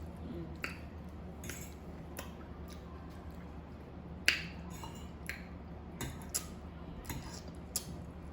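People eating: scattered short clicks and smacks of utensils and chewing, the sharpest about four seconds in, over a low steady hum.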